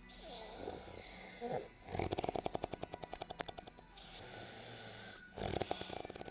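A man snoring with a fluttering, rattling snore, twice: once about two seconds in and again near the end, with quieter, breathy breathing in between.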